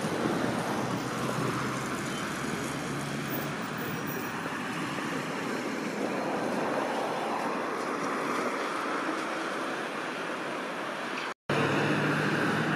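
Steady city street noise of road traffic, with a tram moving along its tracks. The sound cuts out briefly near the end and comes back louder, with a steady low hum.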